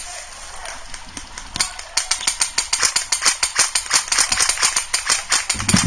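Airsoft guns firing in rapid strings of sharp cracks, about eight to ten a second. Shots are scattered at first and become dense from about two seconds in.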